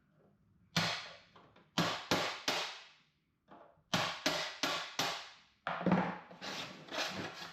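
Sharp metal clanks and knocks from metal toolbox drawers being handled and set down, in quick groups of three or four, each ringing briefly.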